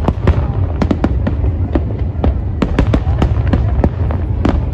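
Aerial fireworks display going off: a dense, irregular string of sharp bangs and crackles, several a second, over a constant low rumble.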